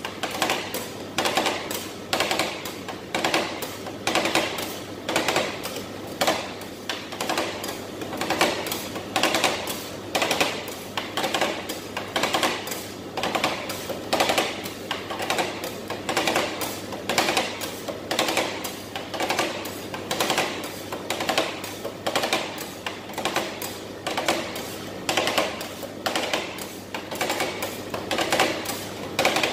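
Metal spatulas chopping and scraping cream mix on a stainless steel cold plate, a steady run of clacks about two to three a second, as cookie crumbs are chopped into the mix for rolled ice cream.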